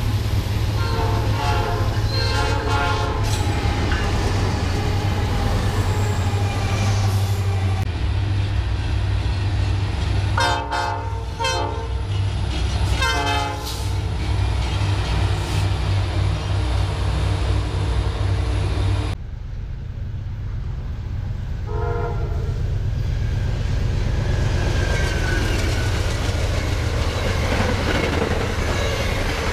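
Freight trains pass with a heavy rumble and wheel clatter while diesel locomotive horns sound several blasts: a few short ones at the start and two more around the middle. After an abrupt change about two-thirds through, another passing train gives one short horn blast.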